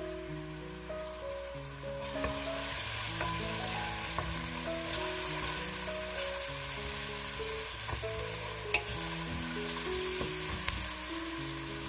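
Chopped red onion sizzling in olive oil in a stainless steel pot, the sizzle getting stronger about two seconds in, while a wooden spoon stirs it with a few light knocks against the pot. Background music with sustained notes plays underneath.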